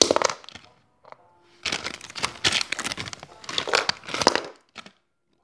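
Plastic foil blind-bag packets crinkling as they are handled and torn open: a short rustle at the start, then a longer stretch of crinkling from about two seconds in that stops near the end.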